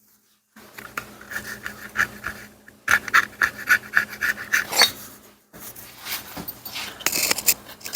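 Razor blade scraping old gasket material off a Moto Guzzi Ambassador engine's mating surface in quick rhythmic strokes, with a short pause about five seconds in.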